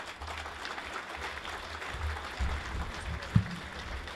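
Audience applauding, a steady mass of many hands clapping, with a single sharp low thump a little over three seconds in.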